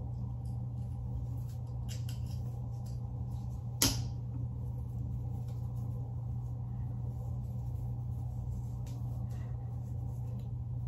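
Quiet handling sounds of hair being worked with a crochet latch hook, faint rustles over a steady low hum, with one sharp click about four seconds in.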